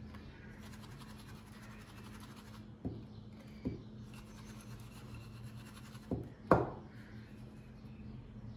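Breadcrumbs rustling and scratching as a patty is pressed and turned in a glass dish of crumbs. There are four knocks of the glass dish against the table, the last one, about two thirds of the way in, the loudest. A steady low hum runs underneath.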